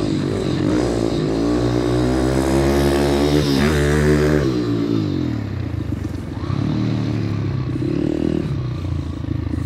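YCF Bigy pit bike's single-cylinder four-stroke engine revving hard as it accelerates past, its pitch climbing for a few seconds and then dropping sharply as it goes by about four seconds in. After that the engine runs lower and unevenly.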